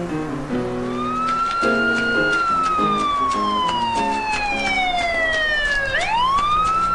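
Emergency-vehicle siren wailing: starting about a second in, it rises a little, falls slowly in pitch for several seconds, then sweeps quickly back up near the end. Piano music plays underneath.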